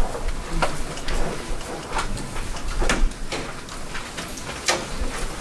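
Irregular sharp clicks and knocks, about six in all, with light rustling over a low room rumble: handling and movement noise in a meeting room.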